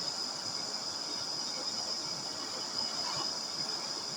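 Natural-gas torch and furnace burner running steadily: an even hiss with a constant high-pitched whine.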